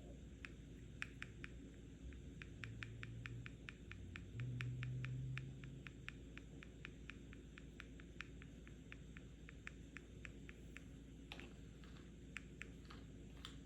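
Light tapping on a medicine or pill box: a quick, even run of taps, several a second, that slows to scattered taps near the end. A low hum is heard under the taps for a few seconds early on.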